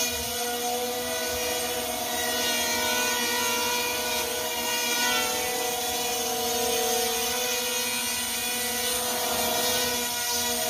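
JJRC M02 RC plane's electric motors and propellers whining steadily as it hovers nose-up, the pitch shifting slightly up and down with throttle corrections.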